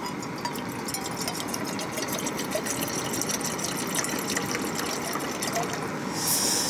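Water pouring in a steady stream from a 2-litre plastic bottle into a titanium Snow Peak Trek 900 camping pot, filling it. There is a short louder rush near the end.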